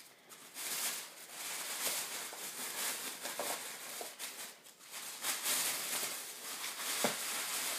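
Rustling and handling noise as purchases are rummaged through and picked up, with a few soft knocks.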